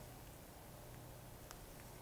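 Near silence: a faint steady room hum, with a single light tick about one and a half seconds in from metal tweezers touching the model car's plastic interior.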